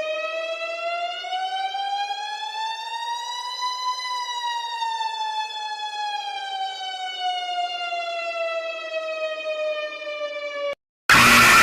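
A siren making one slow wail: its pitch rises for about four seconds, then falls for about six more. It cuts off near the end, and after a brief gap a loud burst of noise begins.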